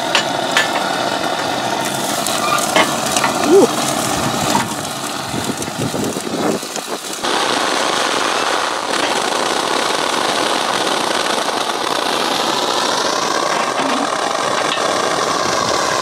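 Wet steam, a mix of water and steam, spitting and hissing out of the outlet of a homemade copper-tube flash steam generator. A steady hiss that jumps louder about seven seconds in.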